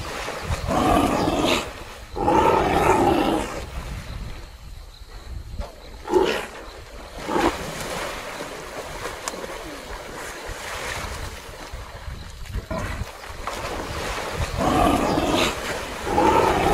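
A lion and a waterbuck struggling in a river: water splashing, with loud animal calls about a second long, two near the start and two near the end, and a couple of short sharp splashes in between.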